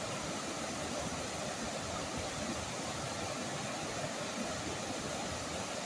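Snoqualmie River rapids rushing over boulders: a steady, even rush of white water.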